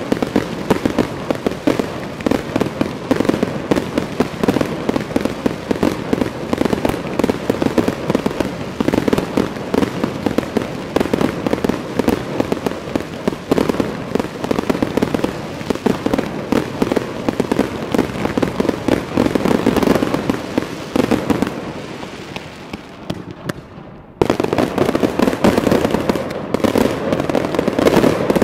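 Fireworks going off: a dense, continuous stream of rapid sharp bangs and crackling. It thins and fades about three quarters of the way through, then starts again abruptly.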